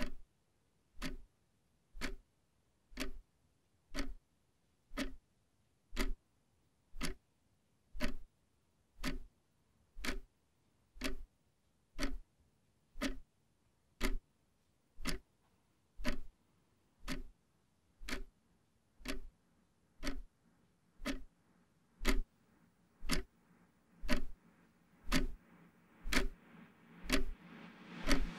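Clock ticking steadily, about once a second. A low hum builds underneath it over the last several seconds.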